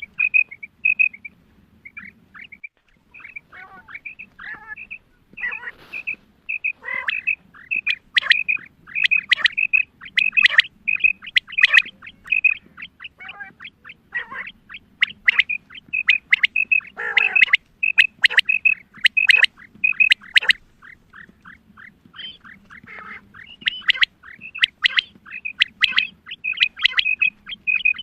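Female common quail calling: runs of short, high chirping notes repeated several times a second, mixed with lower, downward-sliding notes, with brief lulls between the runs.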